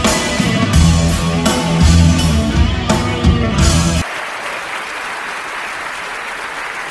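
Rock music with a driving drum beat and heavy bass, cut off abruptly about four seconds in, giving way to a large arena crowd applauding steadily.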